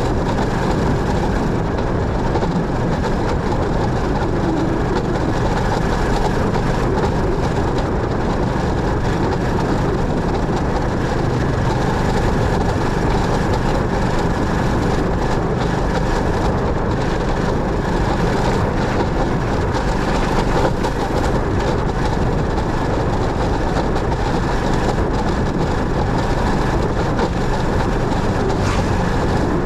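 Motorcycle riding at a steady pace: engine and road noise without a break.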